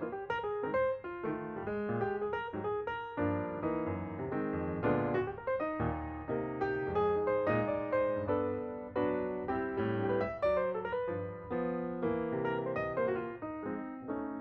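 Background piano music: a melody over chords played on a piano or electric piano.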